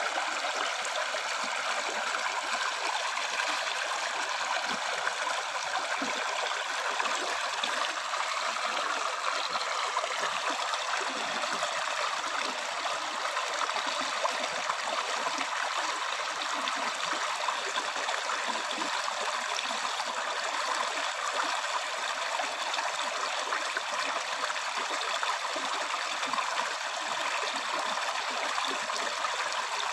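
River stream running over stones, a steady rush of flowing water with constant gurgling.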